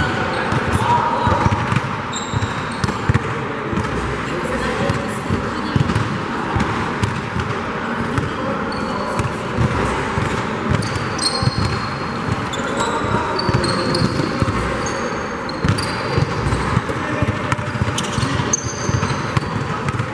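Basketball game play on an indoor court: a ball bouncing repeatedly on the floor and sneakers squeaking in short high chirps, with voices in the background.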